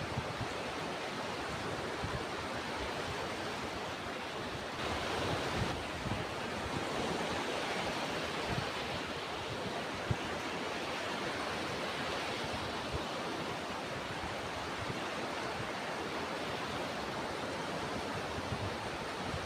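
Ocean surf washing in a steady rush, a little fuller about five seconds in, with wind now and then thumping on the microphone.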